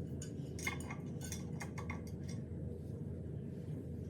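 Light clinks and taps of new kitchenware being handled, several small knocks in the first half and fewer after, over a steady low hum.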